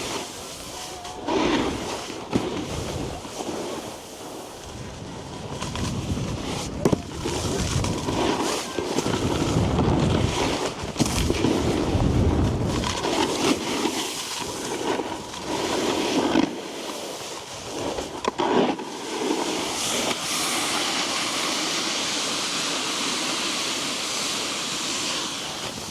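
Snowboard sliding and scraping over packed snow, with repeated swells as the edges carve and skid, and wind noise on the microphone.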